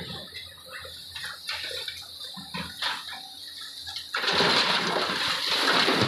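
Excavator loading broken stone into a tipper truck: a few scattered knocks and clatters, then about four seconds in a sudden loud rushing noise starts and holds.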